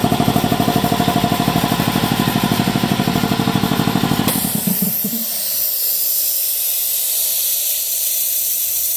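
Speedaire 1WD71 10 HP two-stage air compressor running with a rapid, even pulsing, then cutting off abruptly about four seconds in as the tank reaches its cut-out pressure of about 175 psi. A steady hiss of air blowing off from the pressure regulator follows.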